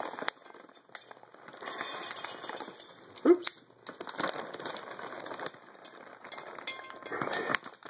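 Dry cat kibble pouring out of a bag and clinking onto a ceramic plate, in several rattling spurts. A short, loud pitched sound about three seconds in.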